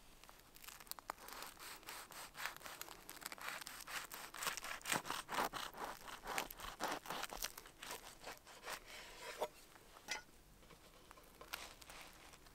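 A knife sawing back and forth through a crusty baguette sandwich on a wooden cutting board, the crust crackling in a quick run of short strokes; the cutting stops about ten seconds in.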